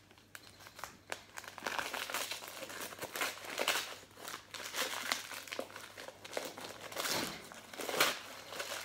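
Wrapping paper crinkling and rustling in irregular bursts as a gift is unwrapped by hand, the loudest crinkle near the end.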